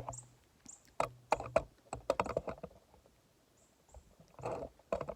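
Sharp knocks and clatters of scrap being handled, bunched together from about one to two and a half seconds in.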